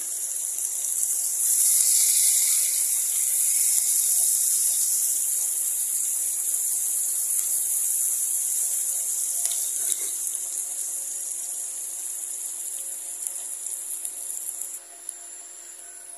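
Sliced food frying in hot oil in a pot, a steady sizzle that is loudest in the first few seconds, eases off slowly and drops suddenly near the end. A few light scrapes of a spatula come about ten seconds in, over a faint steady hum.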